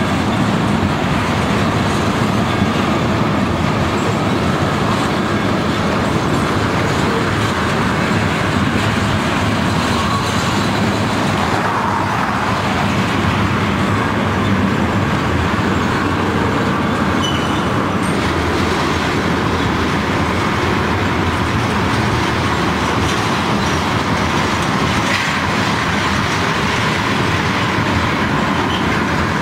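A freight train of ethanol tank cars rolling past close by: steel wheels on rail make a steady rumbling rush that holds at an even level throughout.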